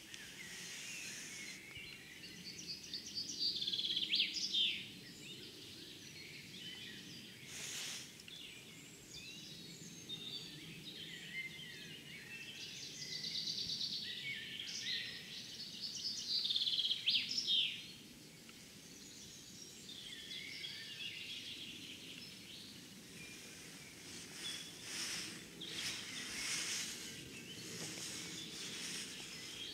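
Songbirds singing, with two loud song phrases of fast repeated notes that run down in pitch, each a couple of seconds long, about three seconds in and again near the middle. Scattered shorter calls sit over a steady low outdoor background noise.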